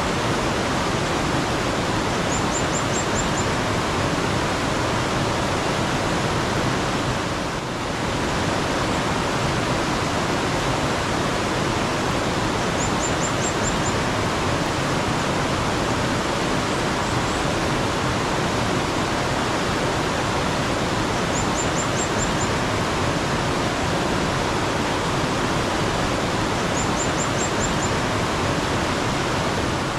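Steady rushing of mountain stream water, with a short high bird trill of about five quick notes heard four times.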